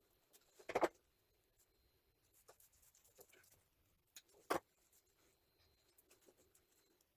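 Quiet handling noises from small parts being fitted inside an angle grinder's housing: faint rustling and light taps, with two sharper clicks, one about a second in and another about four and a half seconds in.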